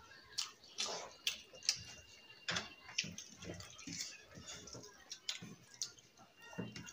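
Close-mic eating sounds: irregular wet smacks and clicks of people chewing rice and fish, with fingers mixing rice on plates.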